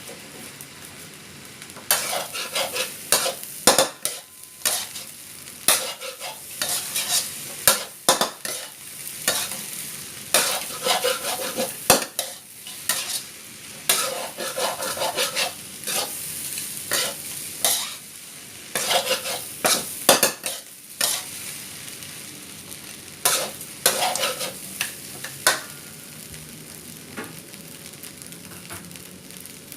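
Seafood fried rice sizzling in a pan as it is stir-fried, a spatula scraping and clattering against the pan in quick irregular strokes from about two seconds in. Near the end the stirring stops, leaving only a steady sizzle.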